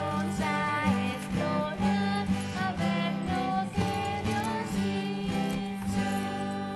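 Upbeat music led by an acoustic guitar.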